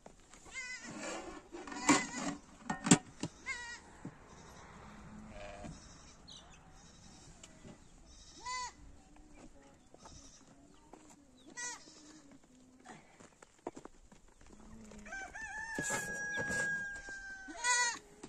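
Goats bleating, several short wavering calls spread apart, and a rooster crowing one long held call near the end. Two sharp knocks, the loudest sounds, come about two and three seconds in.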